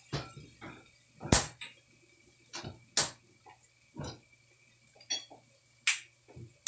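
Kitchenware being handled: about half a dozen separate sharp knocks and clinks, the loudest about a second in, over a faint steady low hum.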